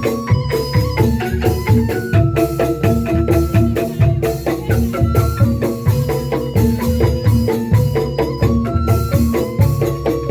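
Percussion ensemble music: fast, evenly struck tuned notes stepping through a melody over steady drum beats.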